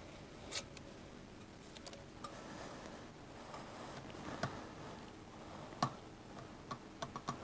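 A few scattered light metallic clicks from a torque wrench being fitted to and turned on the spoke nipples of a motorcycle's spoked rear wheel, as the spokes are checked for torque. The clearest clicks come about half a second, four and a half and six seconds in, with a quicker run of small clicks near the end.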